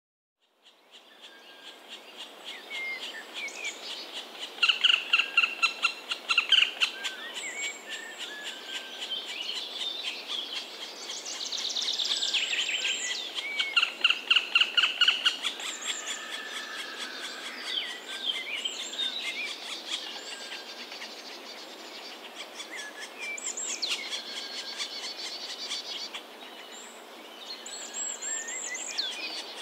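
Several birds calling and singing, a mix of chirps and whistled notes, with two spells of loud, rapidly repeated calls, one about five seconds in and one around the middle.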